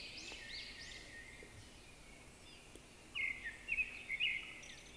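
Birds chirping in the background: quick arching high notes repeated about three times a second at first, then a louder cluster of chirps about three seconds in.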